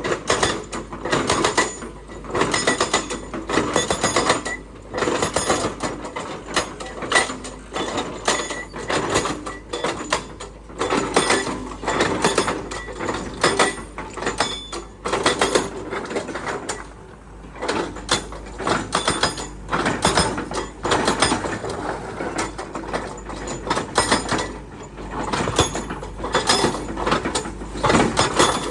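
Excavator working, with irregular metallic clanking and rattling in uneven bursts.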